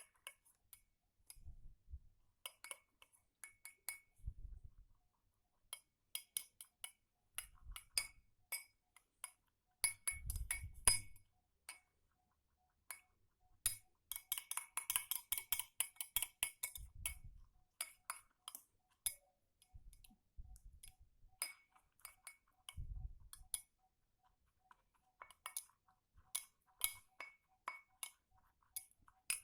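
Spoon stirring in a glass: irregular clinks against the sides, with a quick run of clinks about halfway through and several low, dull knocks.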